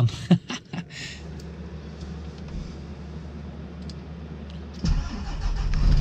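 A few clicks and knocks, then a low steady hum; about five seconds in, a truck's diesel engine starts and runs on with a deep rumble.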